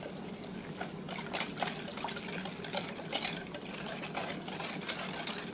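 Wire whisk beating a thin liquid mixture of eggs, canned milk and sugar in a large glass measuring cup: steady sloshing with many small irregular clicks of the whisk against the glass.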